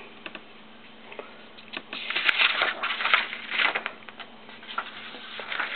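Rustling and light clicks of paper being handled, densest from about two to four seconds in.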